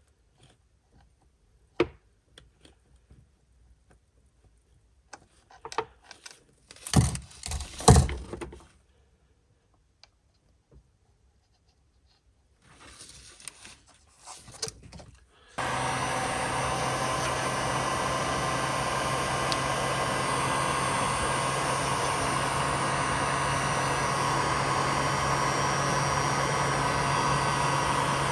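Scattered clicks, knocks and rustling of hands working at the car, then about halfway through a machine switches on abruptly and runs steadily: an even hiss-like noise over a low hum.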